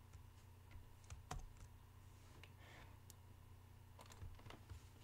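Near silence broken by a handful of faint, scattered clicks from working a computer's mouse and keys; the clearest comes a little over a second in.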